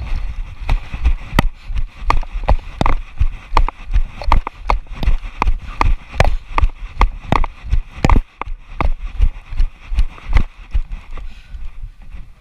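Running footsteps, about two to three footfalls a second, each a sharp impact with a low thump, slowing and stopping about eleven seconds in.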